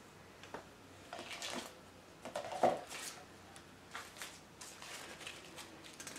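Artificial flower stems and leaves being handled and pushed into an arrangement: scattered soft rustles and light clicks, with one sharper click about two and a half seconds in.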